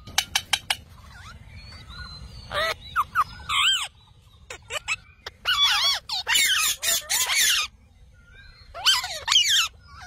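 Rose-ringed parakeets calling in loud bursts of shrill, wavering squawks, three bursts with short pauses between, after a few sharp clicks in the first second.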